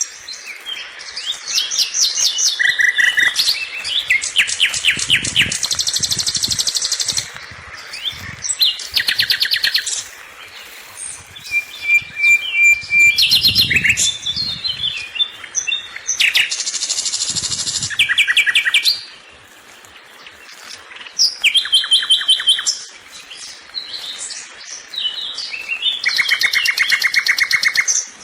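Songbirds singing: fast trills and runs of rapid chirps in repeated bursts of a few seconds each, several birds calling over one another.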